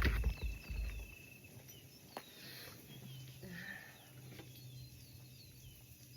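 A sharp knock and a second of low handling thumps at the start, then small birds chirping faintly over a steady low hum.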